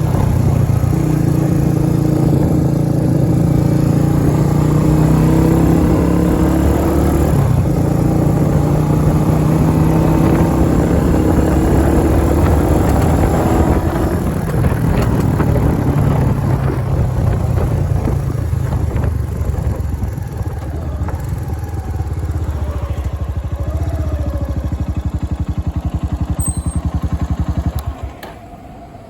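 A vehicle engine running steadily and loudly, its pitch easing slightly lower at first, then turning into a quicker, pulsing beat in the second half before cutting off sharply near the end.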